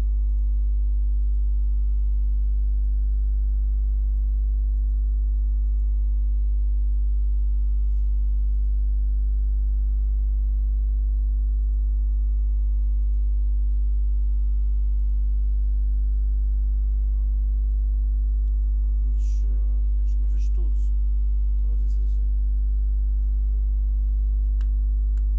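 Steady electrical mains hum, a strong 50 Hz buzz with a ladder of evenly spaced overtones, unchanging throughout. A few faint keyboard clicks come near the end.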